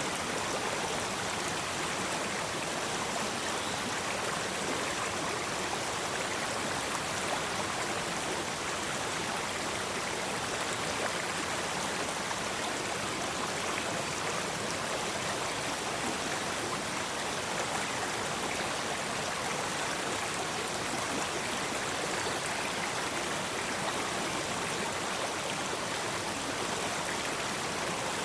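Small river flowing over rocks: a steady rush of running water that holds level throughout.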